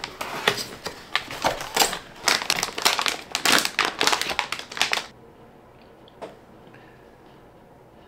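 Plastic packaging crinkling and rustling as a computer part is unwrapped from its box, a rapid run of rustles and clicks that stops about five seconds in. One soft tap follows a second later.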